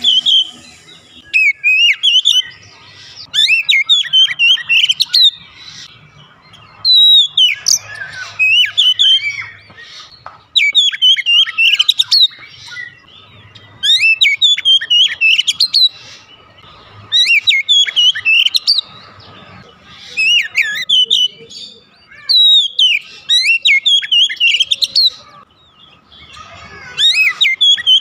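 Oriental magpie-robin singing: loud phrases of rapid whistles and warbling trills, repeated every two to three seconds with short pauses between them.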